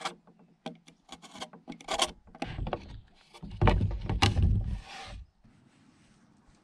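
Wooden tongue-and-groove boards and quick-grip bar clamps being worked by hand: a run of short scrapes and clicks, then heavier knocks and rubbing of wood on wood about three and a half seconds in, dying away near the end.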